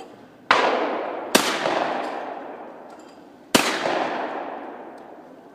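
Three shotgun blasts, the first two under a second apart and the third about two seconds later, each dying away in a long echo.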